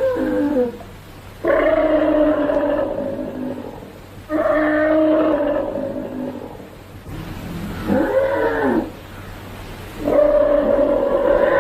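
Vintage film sound effect of a triceratops bellowing: four long, pitched roars about three seconds apart. The third swoops up and back down in pitch.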